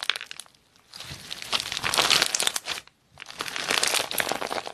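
Clear slime packed with small charm pieces being stretched and squeezed by hand, making a dense crackling and popping, which drops out briefly twice.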